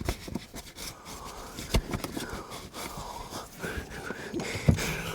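Scattered knocks and clicks with rustling of plastic sheeting from hands working in a wall cavity, and a man breathing hard. The loudest knocks come just under two seconds in and near the end.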